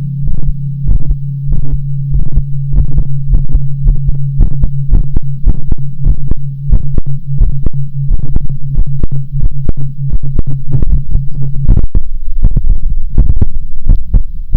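Amplified heartbeat beating fast, several thuds a second, over a steady low hum. The hum cuts out about twelve seconds in while the beats carry on.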